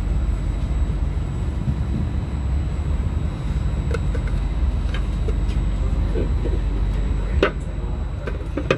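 Steady low rumble inside a regional train carriage, with a few clacks from the plastic flip-top litter bin under the window as its lid is handled and an aluminium drink can is put inside. The loudest knocks come about two-thirds of the way through and again near the end.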